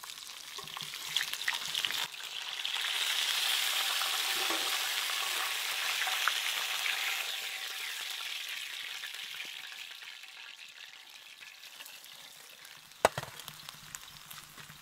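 Whole pomfret frying in hot oil in a wok, a steady sizzle that swells about two seconds in and then dies away as the fully fried fish is lifted out. A single sharp knock near the end.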